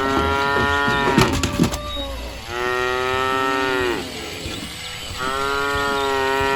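Walking toy cow playing a recorded moo, three long calls that each bend down in pitch as they end. A few sharp clicks come between the first and second moo.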